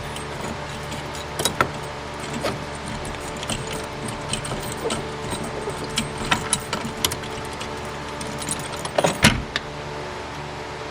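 Scattered light metallic clicks and clinks of tools and small parts being handled at a car's steering column, with a louder clatter about nine seconds in, over a steady low hum.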